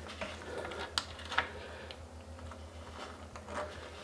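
Hose fitting being screwed by hand onto a bidet seat's water inlet: light scattered clicks and ticks, with two sharper clicks about a second in.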